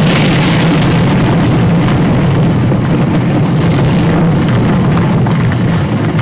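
Loud, steady deep rumble, with a brighter noisy surge right at the start: a dramatic rumbling sound effect played through the hall's speakers.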